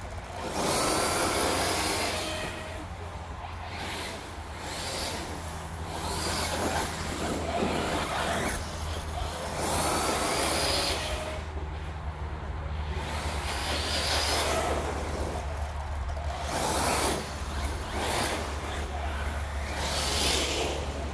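Typhon RC buggy on a 3S LiPo, its electric motor whining in about six bursts of a second or two as it accelerates, the pitch rising with speed in each burst.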